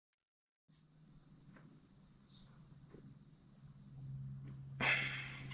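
Insects trilling steadily at a high pitch, starting suddenly after a moment of dead silence, over a low hum. Near the end there is a sharp clatter of something being handled, the loudest sound.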